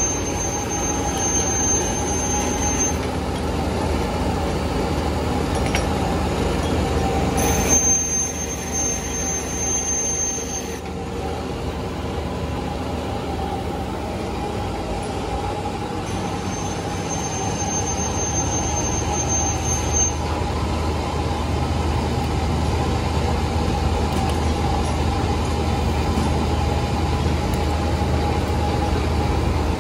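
Steady din of machinery running on a hand-tool factory floor, a constant hum under it, with a high thin whine that comes and goes three times.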